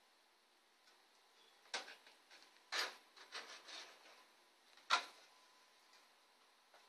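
Sharp metal clicks and short scrapes from a steel PC case as the PCIe slot-cover knockouts are worked loose, a few irregular strokes with the loudest click about five seconds in.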